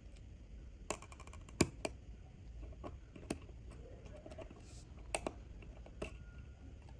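Small metal tools clicking and tapping against watch parts in irregular single clicks, with a quick run of ticks about a second in and the sharpest click just after it.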